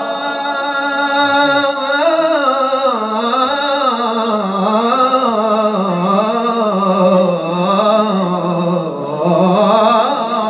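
A man singing an unaccompanied, melismatic line of Moroccan madih (Sufi praise song for the Prophet) without words: a note held steady for about two seconds, then a long wavering, ornamented melody on the same breath.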